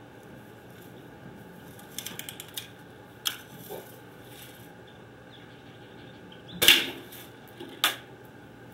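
Daisy Buck spring-powered BB gun being cocked and fired at a CD twice: a quick rattle of clicks about two seconds in, then sharp snaps and clacks, the loudest a longer clack a little before seven seconds.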